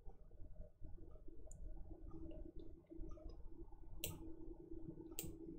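Two sharp computer mouse clicks about a second apart near the end, over a faint steady low hum.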